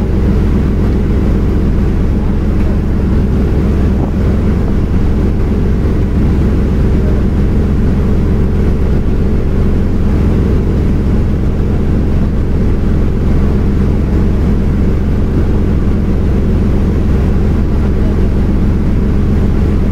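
Fishing boat's engine running steadily at close range: a loud, unbroken low drone with a steady hum.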